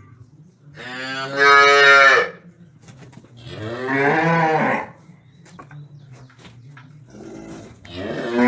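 Cattle mooing: two long moos, one about a second in and one around the middle, and a third starting near the end, over a low steady hum.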